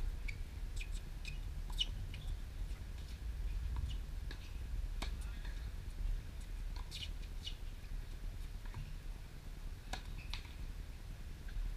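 Tennis shoes squeak sharply on a hard court during a rally, about ten times, with a few clicks from racket strikes on the ball, over a low steady rumble.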